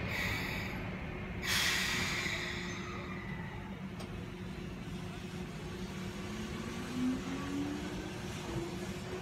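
Electric trains standing at a station: a brief hiss of compressed air at the start, then a louder, longer air hiss about a second and a half in, from the air brakes venting, over a steady electrical hum. Near the end a faint whine rises in pitch.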